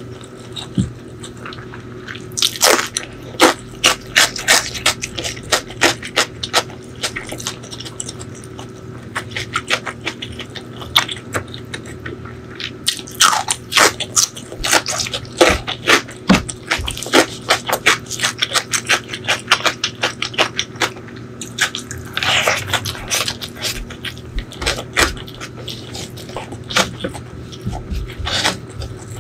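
Close-miked wet eating sounds of a person chewing a spicy chicken liver and gizzard curry eaten by hand: runs of sharp lip-smacks and sticky mouth clicks, with a longer wet sound about two-thirds of the way through. A steady low hum sits underneath.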